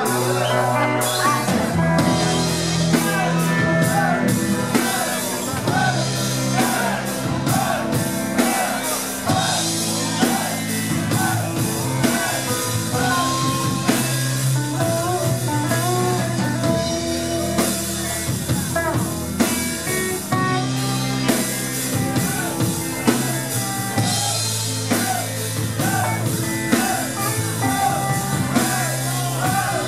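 A heavy metal band playing live: electric guitars, bass guitar and drum kit at a steady beat.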